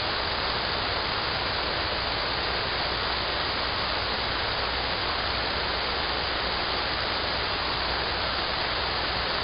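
Steady, even hiss of radio static from a receiver tuned to 74.250 MHz.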